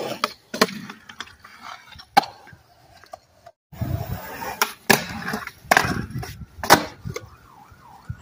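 Skateboard rolling on smooth concrete, with several sharp clacks of the board hitting the ground. The loudest clack comes near the end.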